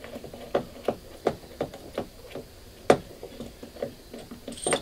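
Light metallic clicks and ticks, about three a second, as the nut of a flaring tool is turned by hand on a brass through-hull drain tube, with one sharper click about three seconds in.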